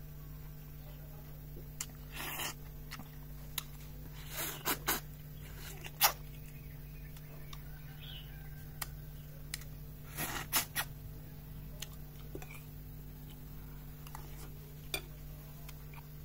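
Scattered short clinks and clatters of cutlery against plates during a meal, over a steady low hum.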